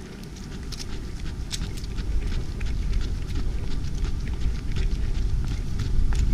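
Footsteps of someone moving on foot while carrying a handheld camera: a quick, irregular string of ticks and crunches, several a second, over a steady low rumble on the microphone, growing louder as the pace picks up.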